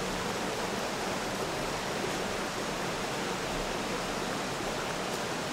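Shallow rocky stream flowing steadily.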